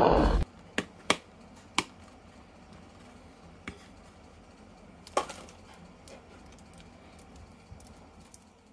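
Toys and packaging being handled: scattered sharp clicks and taps, with the loudest knock about five seconds in. Background music cuts off right at the start.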